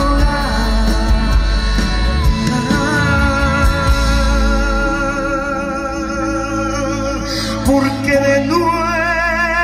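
Live pop-rock song: a male singer holds long, wavering notes over a band of acoustic guitar, bass guitar and drums.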